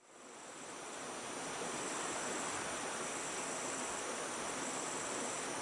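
Rainforest ambience: a steady high-pitched drone of insects over an even hiss, fading in over the first second or two.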